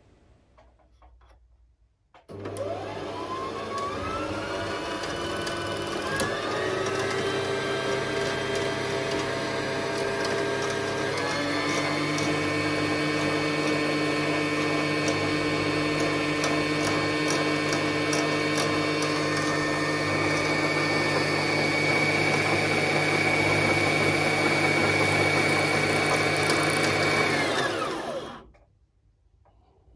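Brother JA1400 sewing machine's motor running to wind a bobbin, driven from the foot pedal. It starts about two seconds in and rises in pitch over the next few seconds. It steps up again about a third of the way in, runs steadily, and slows to a stop near the end.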